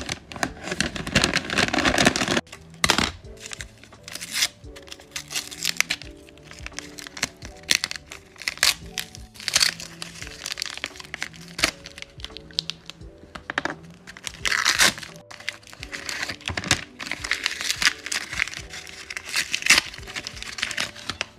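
Notebook paper crinkling and tearing in quick bursts as taped paper wrapping is pulled open by hand, over background music with a simple stepped melody.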